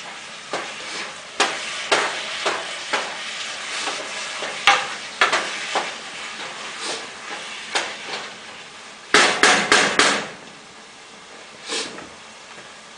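A spoon stirring chili in an enamel-coated pot, clicking and knocking against the pot's sides and bottom at an irregular pace. About nine seconds in comes a quick run of five or so louder knocks, then one more a little later.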